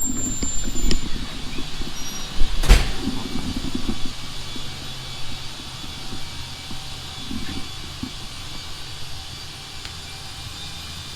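Workshop noise: handling and clattering sounds over a steady low hum, with one sharp, loud knock about three seconds in, then only the hum.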